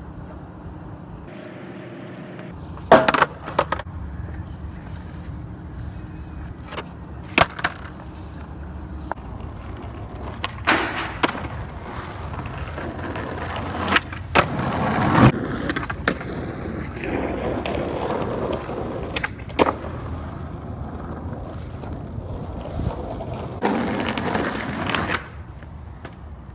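Skateboard on rough asphalt: wheels rolling and the wooden board clacking sharply several times as tricks are popped and landed, the loudest crack about fifteen seconds in, with a further stretch of rolling near the end.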